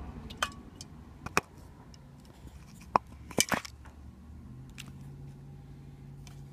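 Hand-handling noises around a cardboard box: scattered short clicks and taps, with a cluster of sharper knocks around the middle, over a faint low hum.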